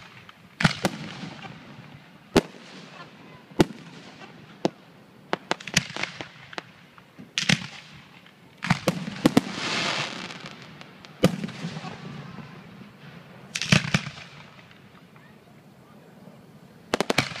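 Aerial fireworks shells bursting overhead: a string of sharp booms at irregular intervals, some in quick clusters of two or three, each trailing off. About ten seconds in there is a longer rushing noise that lasts about a second.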